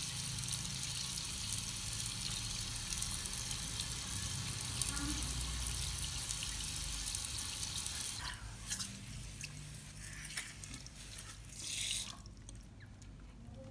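Tap water running into a sink basin while hands are rubbed and rinsed under the stream, a steady hiss. About eight seconds in the flow breaks into separate splashes and drips, and about twelve seconds in the tap is turned off and it goes quiet.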